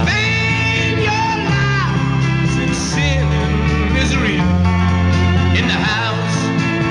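Rock band with a male lead singer holding long, sliding sung lines over electric guitar, bass, drums and organ.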